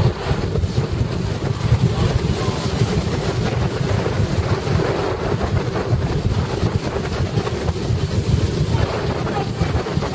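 Steady rumble of a moving car's road and engine noise, mixed with wind noise on the microphone.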